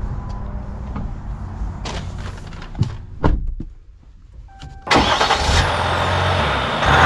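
Ram 1500's 3.0-litre V6 EcoDiesel running, with several knocks over the steady engine hum and a short tone near the middle. From about five seconds in the vehicle sound turns suddenly louder and fuller.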